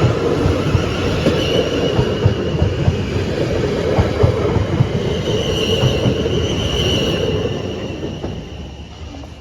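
Train passing, its wheels clattering over the rails, with a high wheel squeal heard twice, fading near the end as it moves away.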